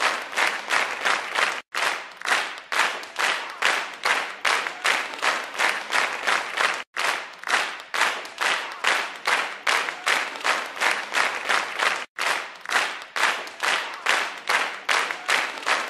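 A group clapping in unison to a steady beat, about three claps a second. The beat is broken by three very brief dropouts.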